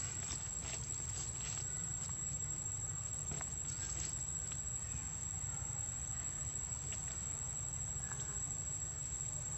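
Outdoor ambience: a steady high-pitched insect drone over a low, even rumble, with a few faint clicks and rustles scattered through.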